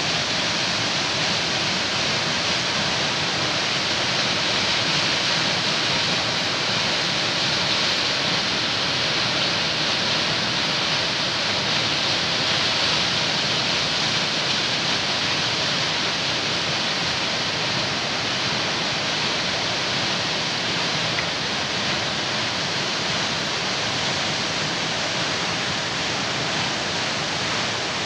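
Waterfall: the steady rushing hiss of falling water, even and unbroken.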